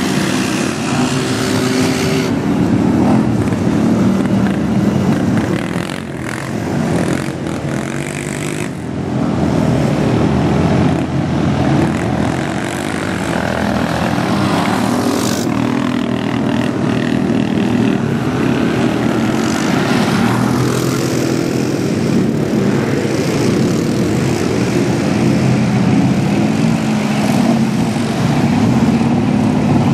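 Engines of a Ford mud truck and ATVs running and revving as they churn through a deep mud pit, the engine pitch rising and falling.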